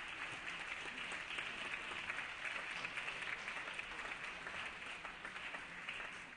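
A large group applauding, a steady dense patter of many hands clapping that cuts off suddenly at the end.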